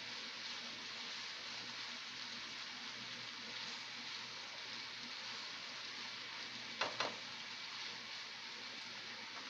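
Beef adobo with diced potatoes sizzling steadily in a nonstick frying pan as it is stirred with a silicone spatula. Two sharp knocks close together about seven seconds in, the spatula striking the pan.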